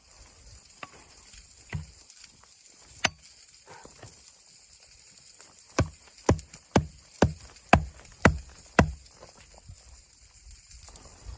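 Sharp knocks: three spaced apart, then a run of seven at about two a second.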